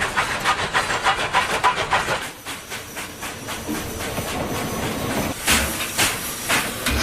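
Steam locomotive running fast, its exhaust chuffing about five times a second with hissing steam; the chuffs soften after two seconds, and two louder puffs come near the end.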